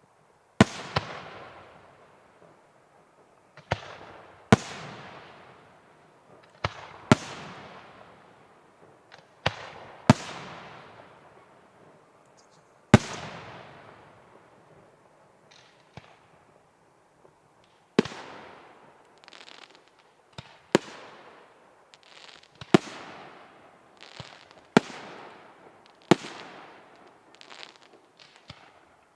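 Fireworks display: about fifteen aerial shells bursting with sharp bangs, each followed by a fading crackling tail. They come every two to three seconds, pause briefly past the middle, then follow more closely toward the end.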